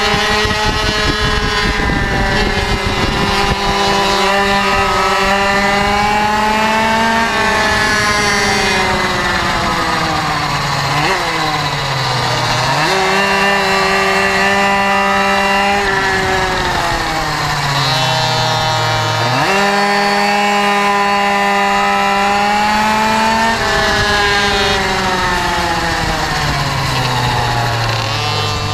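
Pocket bike's small two-stroke engine buzzing at high revs on track. The revs sink three times as the bike slows into corners, then climb sharply back up.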